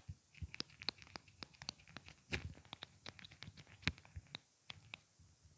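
Mascara wand being worked in and against its tube close to the microphone: a steady stream of small, irregular clicks and sticky crackles, several a second, with a few louder snaps about two and a half and four seconds in.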